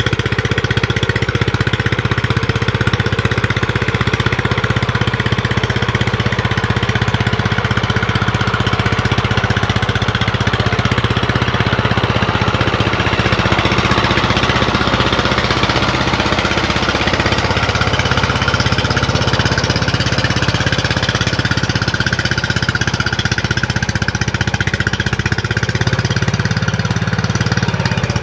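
Two-wheel power tiller's single-cylinder diesel engine running steadily under load, churning through deep mud.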